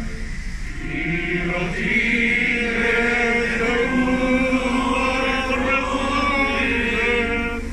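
A group of men singing together in unison, holding long notes, with a brief pause about a second in.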